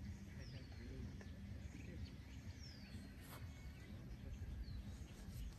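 Birds calling with short falling whistles, three in a row about two seconds apart, over low outdoor background noise.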